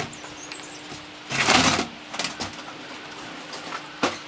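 Clicks, knocks and clinks from a loosened window frame being worked free of a brick wall opening, with one louder scraping clatter about a second and a half in.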